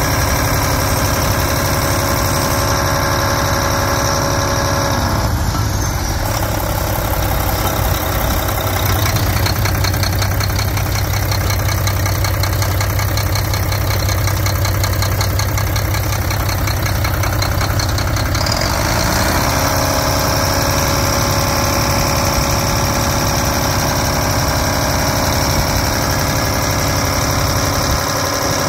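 Mack MP7 10.8-litre inline-six diesel engine running at idle with a steady diesel clatter. About five seconds in, the tone slides down and the clatter becomes more pronounced. Around nineteen seconds it slides back up to the earlier even idle.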